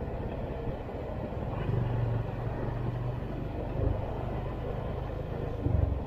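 Vehicle riding through city traffic: a steady low engine rumble with road noise, swelling briefly a few times.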